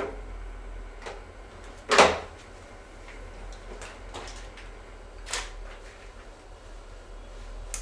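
A few knocks and bumps from handling camera gear, the loudest a sharp knock about two seconds in, with smaller ones about a second in, past five seconds and near the end, over a steady low hum.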